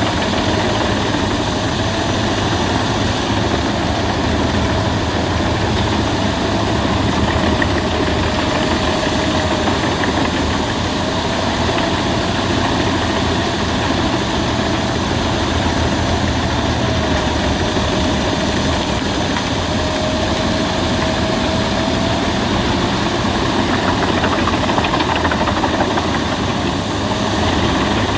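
Albach Diamant 2000 wood chipper running steadily and loud, with a thin whine that fades and returns every few seconds.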